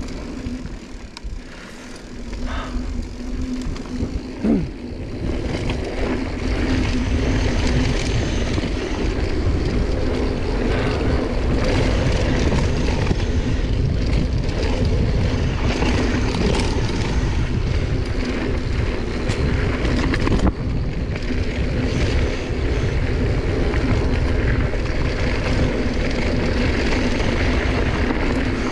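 Mountain bike running fast down a dry dirt trail: wind buffeting the camera microphone and knobby tyres rolling over hardpack, with a steady hum and occasional knocks from the bike. It grows louder about five seconds in as the speed picks up.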